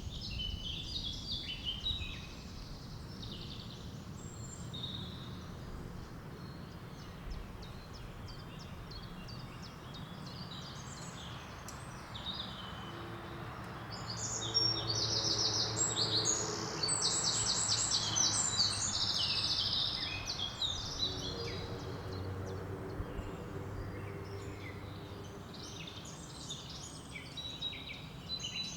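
Small woodland birds chirping and singing over the steady rush of a river flowing over small rapids. A run of rapid, high trills is loudest about halfway through.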